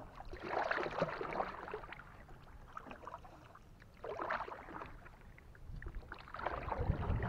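Kayak paddle strokes in the water: three strokes a couple of seconds apart, each a short rush of splashing water.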